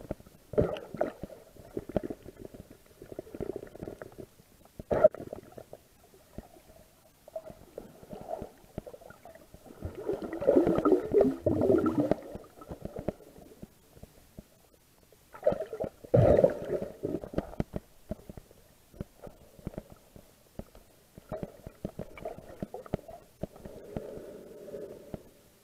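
Muffled underwater sound picked up by a camera held below the surface over seagrass: irregular gurgling and rumbling water movement with scattered clicks. It swells louder for a couple of seconds about ten seconds in and again around sixteen seconds.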